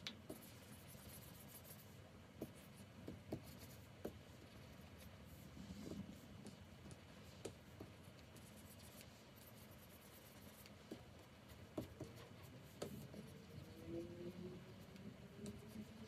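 Stylus nib tapping and stroking on the glass of a Wacom Cintiq 24 Pro pen display: faint, irregular small taps with soft scratching between them.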